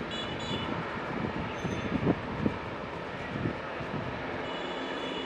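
Piaggio P.180 Avanti twin pusher turboprop taxiing: steady engine and propeller noise with a faint high whine, and a few soft low thumps around the middle.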